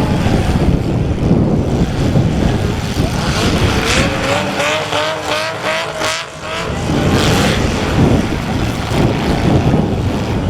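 Compact demolition derby cars' engines running and revving hard. About halfway through, one engine gives a rapid, even pulsing.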